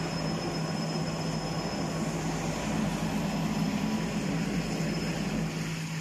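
Steady mechanical drone of a homogenizer mixing plant's motors running, with a thin high whine over a low hum.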